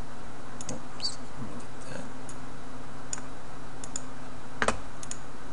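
A few scattered clicks from a computer mouse and keyboard, the loudest near the end, over a steady low hum.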